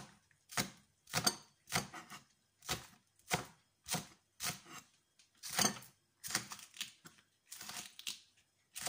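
Chef's knife chopping spring onion on a cutting board: a steady run of sharp knocks of the blade on the board, about two a second.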